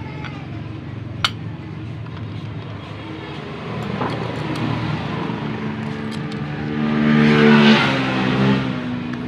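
A motor vehicle engine running steadily, which rises in pitch and gets louder from about six and a half seconds in, then eases off. A sharp metallic click comes about a second in, with a few lighter ticks later.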